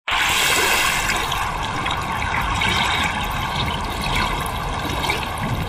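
Splashing, rushing water sound effect, starting abruptly and holding steady.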